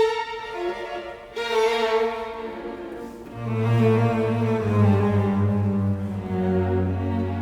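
Background music on bowed strings: sustained notes, with a low cello or bass line coming in about three and a half seconds in and holding.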